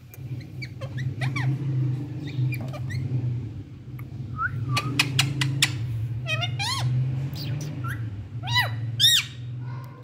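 Rose-ringed parakeet giving short calls that each rise and fall in pitch, scattered through and bunching into a quick, loud run near the end, over a steady low hum.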